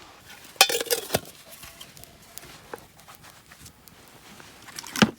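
Camp cookware and utensils being handled: a quick cluster of clinks and knocks about half a second in, and one sharp knock near the end.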